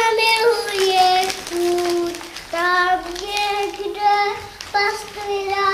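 A young girl singing solo and unaccompanied, in long held notes with short breaks: the opening of a Czech children's song about a snowman.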